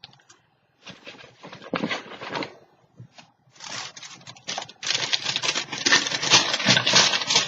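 Paper being handled: a few short rustles, then from about five seconds in a continuous loud crinkling of waxed paper being pulled out and handled.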